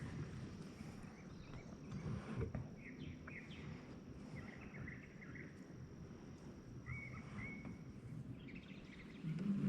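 Outdoor pond ambience: birds chirping in short calls several times, over a steady high insect drone that stops near the end, and a faint low rumble.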